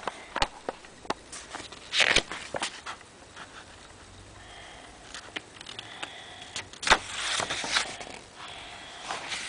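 Close handling noise: paper pages rustling and being handled, with scattered clicks and knocks against the microphone.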